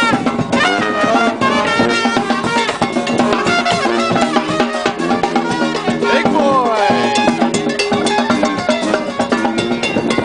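New Orleans brass band playing a second-line street groove: sousaphone and trombones over drums. A falling brass glide comes about six seconds in.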